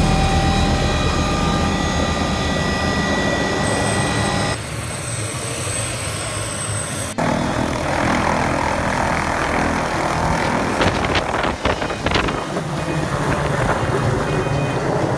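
MD 500 helicopter running. First comes a steady turbine whine with rotor noise heard from inside the cabin. After abrupt changes about four and a half and seven seconds in, the rotor wash rushes heavily from outside, close by, as it sits running on the ground and then lifts off, with a few sharp knocks near the end.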